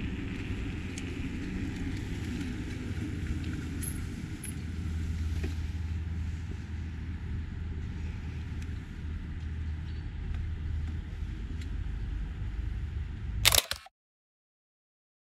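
Steady low rumble of wind and rolling noise on a moving camera's microphone, with faint scattered ticks. A brief loud clatter near the end, then the sound cuts off to total silence.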